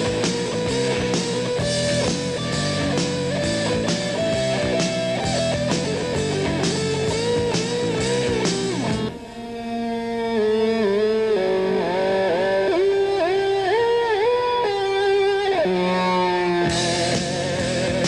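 Rock band playing, with electric guitar, bass and a steady drum beat. About halfway through, the drums drop out and the electric guitar plays alone in bent, sliding notes, and the full band comes back in near the end.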